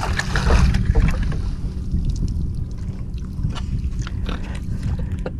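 A speckled trout splashing at the surface beside the boat as it is reeled in and netted, with scattered small splashes and clicks, over a steady low hum.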